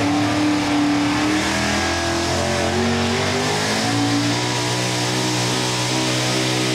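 A Ford super stock 4x4 pulling truck's engine runs at high revs under full load as it drags a weight-transfer sled. Its pitch keeps climbing slowly for the first few seconds, then holds steady.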